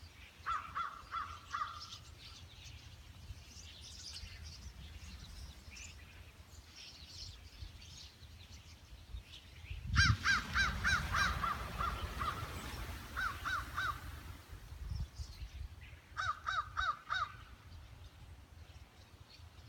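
Wild birds calling: bouts of rapid, harsh, repeated calls, about four to five a second, come four times, the loudest about halfway, with fainter high chirps in between. A low rumble comes in with the loudest bout.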